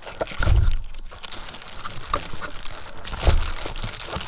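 Packaging crinkling and rustling as a new air ratchet is unpacked by hand, with two dull handling thumps, about half a second in and near three and a quarter seconds.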